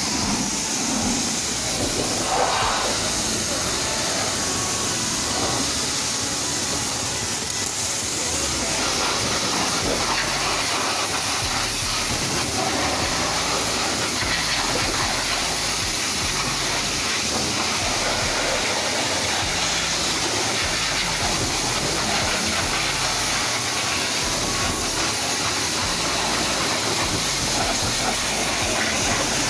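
High-pressure washer spraying water onto a car's underside and wheels on a wash lift: a steady, even hiss of spray.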